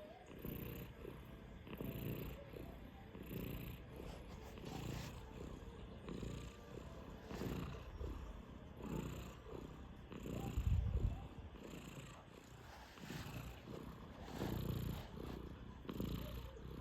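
Five-month-old Sphynx cat snoring, a rasping swell with each breath about every one and a half seconds. A dull low bump comes around the middle.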